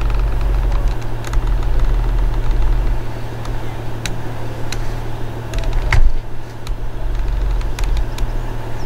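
Vulcan Foundry 0-4-0 diesel shunting locomotive running steadily, a low engine hum, with a few sharp knocks on top, the loudest about six seconds in.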